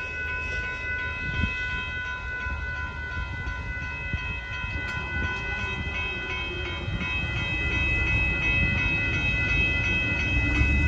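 A grade-crossing warning bell rings quickly and steadily over the low rumble of the Amtrak Texas Eagle passenger train rolling through the crossing. The rumble grows louder in the last few seconds.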